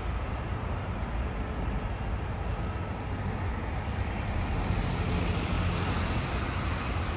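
Steady rumble of jet airliner engines, growing a little louder about five seconds in.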